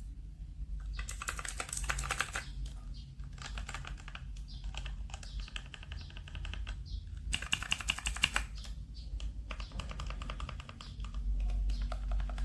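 Mechanical keyboard fitted with Outemu switches being typed on: quick runs of sharp key clicks with short pauses between them.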